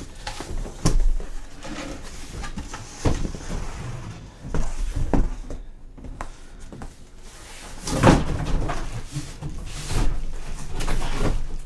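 Cardboard shipping box being pulled off a hard guitar case: cardboard rustling and scraping, with several knocks and thumps, the loudest about eight seconds in.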